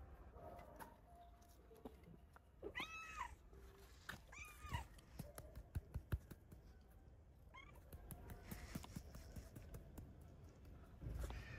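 Cat meowing: two short meows, each rising then falling in pitch, a little over a second apart, then a fainter third one. A few light knocks come between them.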